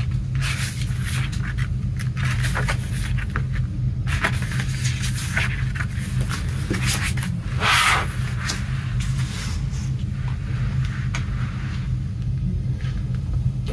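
Hands handling CD packaging: short rustles, clicks and taps of a paper photo book and plastic case, the biggest rustle about eight seconds in, over a steady low hum.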